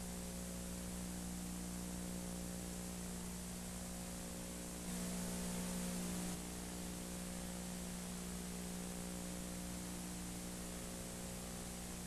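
Steady hiss and low electrical hum: the noise floor of an old broadcast recording, with no commentary. It gets slightly louder for about a second and a half, around five seconds in.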